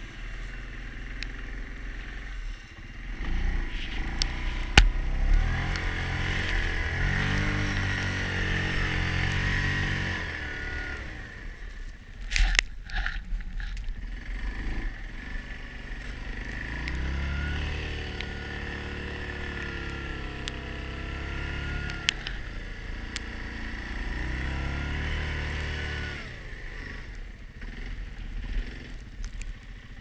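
Yamaha Grizzly ATV on snow tracks, its single-cylinder four-stroke engine under throttle: it revs up and holds, eases off around the middle, then revs up and holds again. A few sharp knocks come through, the loudest about a third of the way in.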